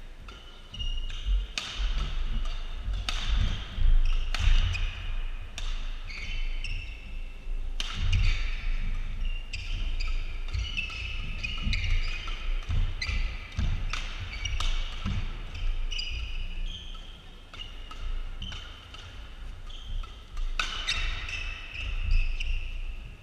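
Men's doubles badminton rally: repeated sharp cracks of rackets striking the shuttlecock, short squeaks of shoes on the court floor, and thudding footsteps as the players lunge and land.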